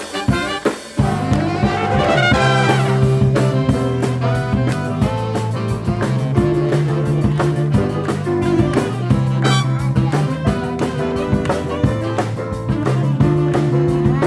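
Big band of trumpets, trombones and saxophones with drum kit and electric bass playing a rock arrangement; short choppy hits give way about a second in to held brass chords over a steady bass line.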